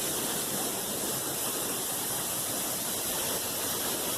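A large waterfall's falling water, a loud steady rushing hiss with no breaks.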